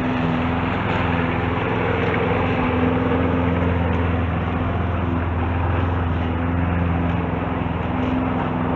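Lawn mower engine running steadily at a constant speed while cutting grass.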